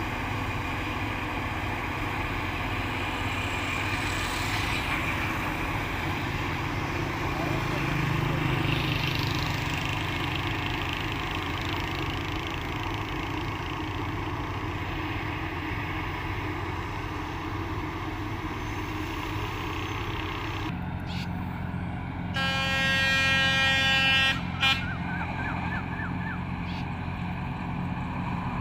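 Corn harvesting machinery's engine running steadily, with a vehicle horn sounding for about two seconds near the end.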